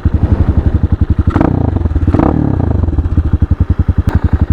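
Hawk 250 dual-sport motorcycle's single-cylinder four-stroke engine idling with even pulses, the bike standing still. Two short rushes of noise pass over it about a second and a half and two seconds in.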